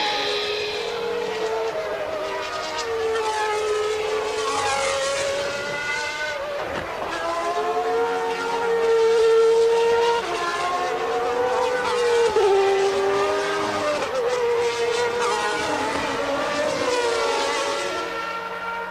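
Engines of 1992 Formula One cars at full racing revs, their high-pitched notes climbing and dropping through gear changes, with several cars heard together and one sharp drop in pitch about twelve seconds in.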